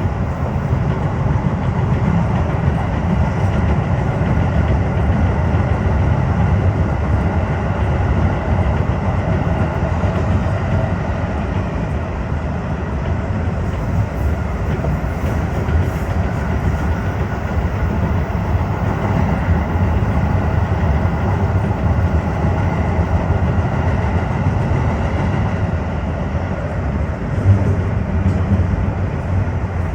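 Tokyo Metro 15000 series electric train running steadily at speed, a continuous low rumble of wheels on rail with faint steady higher tones over it.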